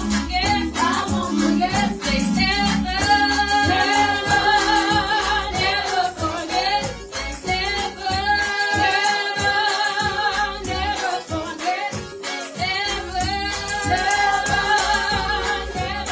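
Two women singing a gospel song together through handheld microphones, holding long notes with a wavering vibrato.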